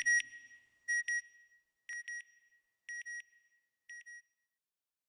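Electronic beep sound effect: a pair of short, high beeps about once a second, five pairs, each quieter than the one before, fading out.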